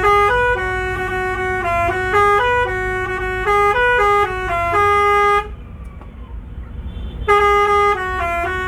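Bus 'telolet' musical air horn playing a quick tune of stepped notes for about five seconds. It breaks off, then starts the tune again near the end, over a steady low rumble.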